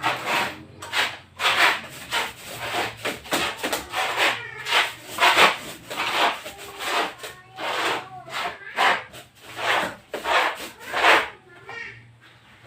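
Hand rubbing strokes back and forth on a wall surface, a steady rhythm of about two strokes a second that stops about a second before the end.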